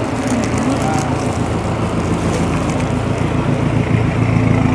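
A vehicle engine running close by over steady traffic noise, with wind on the microphone; it grows a little louder near the end.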